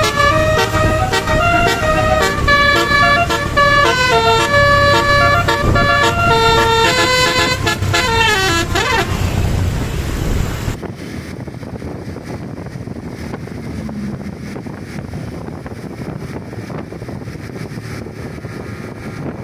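Basuri telolet multi-tone horn playing a fast, stepping melody of short notes for about nine seconds, ending in a falling slide. After that only a quieter, steady background noise remains.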